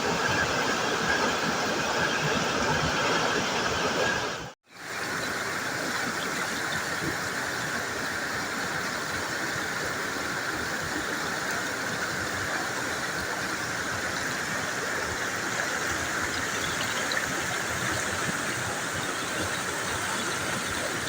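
Steady rushing of water from a waterfall, an even hiss with no pauses. It breaks off abruptly about four and a half seconds in and resumes a little quieter.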